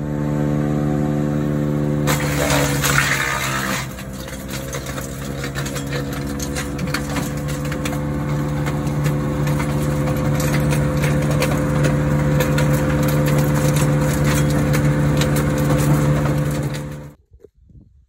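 Wood chipper's small gasoline engine running steadily while branches are chipped. A loud stretch of grinding comes about two to four seconds in, and many sharp cracks and clicks of wood breaking follow. The sound cuts off suddenly near the end.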